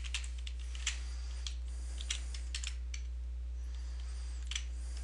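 Irregular computer keyboard and mouse clicks, about ten scattered taps, over a steady low hum.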